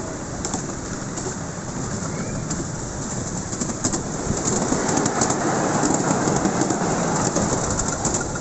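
Miniature railway train running along the track, its carriage wheels rumbling and clicking over the rails. The rumble grows louder about halfway through as the carriage crosses a metal truss bridge.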